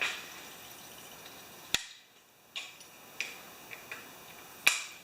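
Two sharp clicks about three seconds apart, with a few fainter ticks between them.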